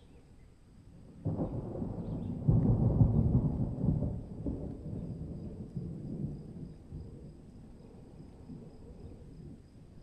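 A roll of thunder: a low rumble that starts suddenly about a second in, swells louder around three seconds in, and slowly fades away.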